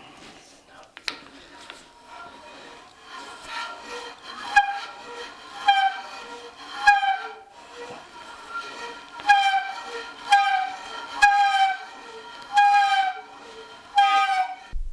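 A long drill bit squealing as it bores deep into the wood of the bench frame. The high squeal slides slightly down in pitch and comes again and again, roughly once a second, with a short pause partway through.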